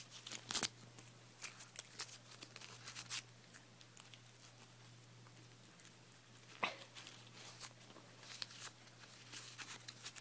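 A dog chewing and tearing at a paper bus pass: irregular bursts of crinkling and crunching with short pauses between them.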